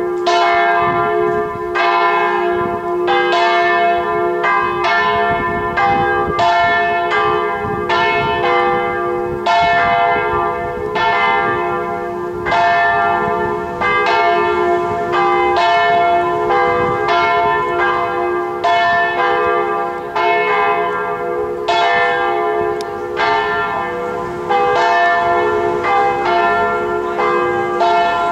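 Marmorkirken's church bells ringing in a peal from the dome's bell lantern: overlapping strikes about once a second, each ringing on over a long sustained hum.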